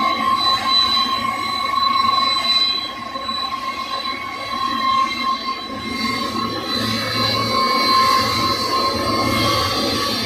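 A Boeing 747-200F's four General Electric turbofans running at taxi power: a loud, steady high whine over a broad engine rumble.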